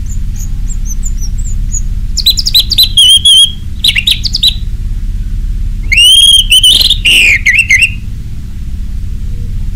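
Orange-headed thrush singing loud song phrases of sliding whistled notes. Two short bursts come about two and four seconds in, and a longer phrase of rising and falling whistles about six seconds in, over a steady low hum.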